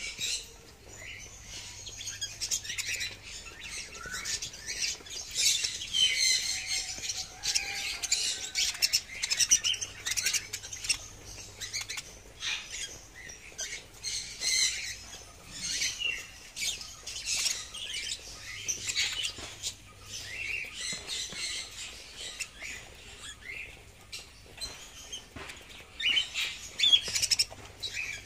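A group of budgerigars chattering and squawking, a dense run of high-pitched calls that swells and fades in stretches.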